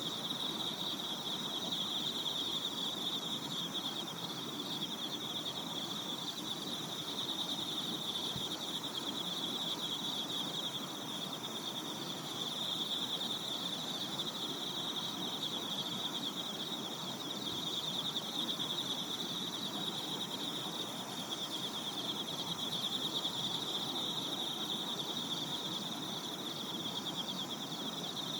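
A chorus of crickets trilling steadily in one high-pitched band, over a low, even background hiss.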